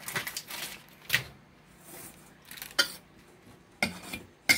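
Table knife scraping soft cream cheese off its crinkly wrapper and clinking against a stainless steel mixing bowl: a handful of separate scrapes and clinks with short quiet gaps between.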